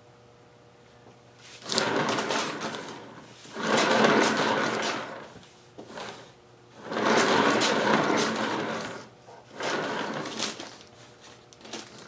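Hand-turned turntable under a poured acrylic canvas, spun in about four pushes. Each push gives a rushing, rumbling whirr that swells and then fades as the spin slows.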